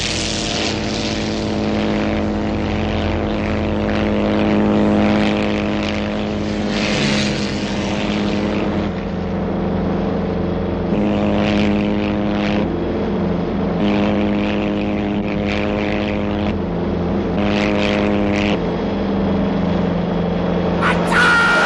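Piston engine of a propeller fighter plane running steadily, its pitch sagging and picking up again several times in the second half. A different, higher sound cuts in just before the end.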